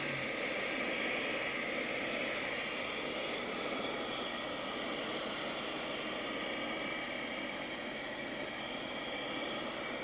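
Piranha 4005 handheld 12-volt car vacuum cleaner running steadily, its small motor whining as the crevice nozzle sucks up dust and grit.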